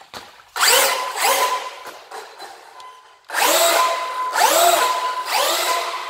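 Traxxas UDR RC desert truck's brushless electric motor and drivetrain whining in short throttle bursts. There is one burst about half a second in, then three more in quick succession from about three seconds in, the pitch rising and falling with each.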